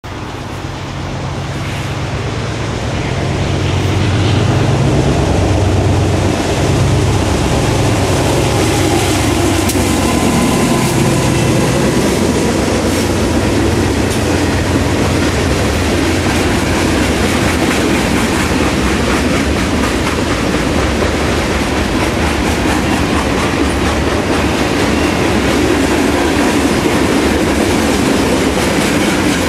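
A freight train with a lone GE C39-8 diesel-electric locomotive passes close by. The locomotive's engine comes up over the first few seconds and draws by with a bending pitch. Then loaded boxcars roll past steadily, their wheels clicking over the rail joints, for the rest of the time.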